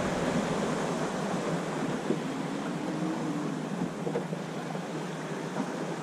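Steady wind noise on the microphone over water lapping around a small fishing boat.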